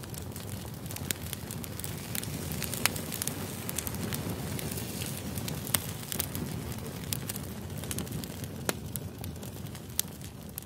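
Steady crackling noise with many scattered sharp pops and clicks over a low rumble.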